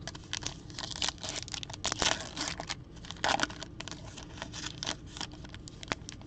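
Foil wrapper of a basketball trading card pack being torn open and crinkled by hand. It gives a dense run of irregular crackling tears over the first three and a half seconds, then lighter, sparser crinkles.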